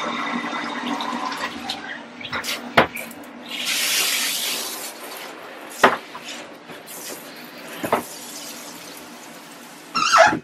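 Water rushing in a bathroom, fading away over the first couple of seconds, followed by a few sharp knocks and a brief hiss about four seconds in.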